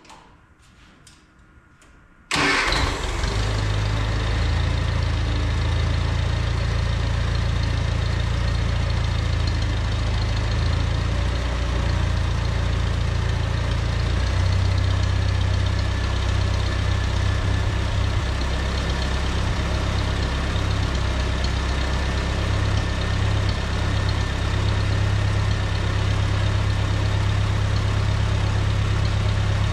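Small Farmall Cub tractor engine starting about two seconds in, catching at once, then idling steadily.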